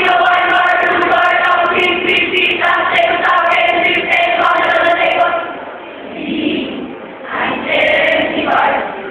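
A group of high-school students chanting in unison as a speech choir, their voices held in long drawn-out tones. The chant drops away briefly about six seconds in, then the group comes back in near the end.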